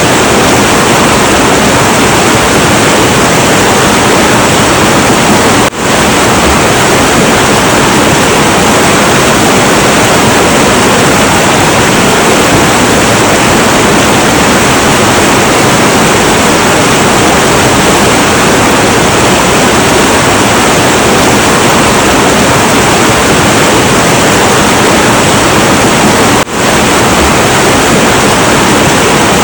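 Heavy, turbulent river water rushing in a loud, steady roar, with two brief momentary dips in level, about six seconds in and near the end.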